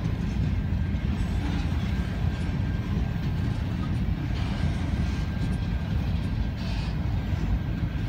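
Union Pacific freight train's cars rolling past: a steady low rumble of steel wheels on the rails as covered hoppers and a centerbeam flatcar go by.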